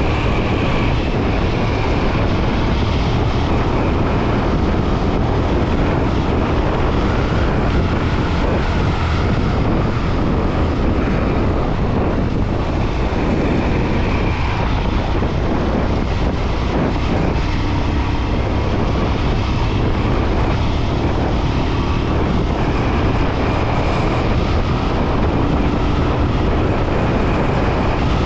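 Royal Enfield Himalayan 411's single-cylinder engine running steadily while under way, with wind noise on the microphone.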